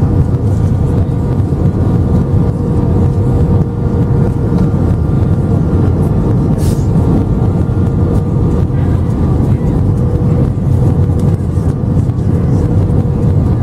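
Cabin noise inside an Airbus A320-232 on final approach: a steady, loud low rumble of airflow and the IAE V2500 engines, with a steady whine held near one pitch. A short hiss cuts in briefly about six and a half seconds in.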